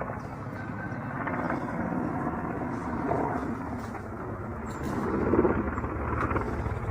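Low-flying attack helicopter's rotor and engine noise, a steady dull rumble that swells briefly about five seconds in.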